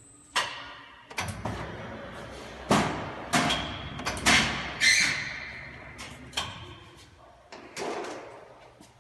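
An irregular series of about nine sharp knocks and bangs, each dying away with a short ring, the loudest in the middle.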